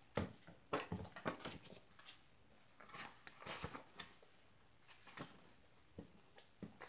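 A paperback picture book being handled on a table and its pages turned: scattered soft rustles, page flicks and light taps.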